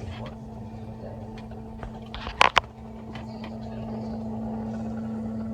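A steady low motor hum that gets louder a little past halfway, with two sharp knocks in quick succession a little before the middle.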